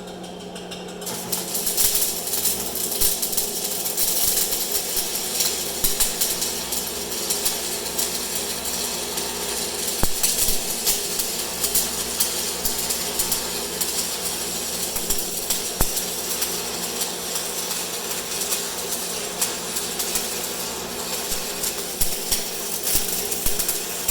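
Stick welding arc burning a 6013 electrode on a Lincoln welder: a steady hum, then a dense, continuous crackle about a second in once the arc strikes, running as the bead is laid.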